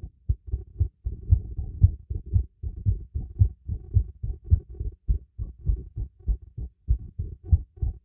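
A human heartbeat heard through a stethoscope: a fast, steady lub-dub at about two beats a second.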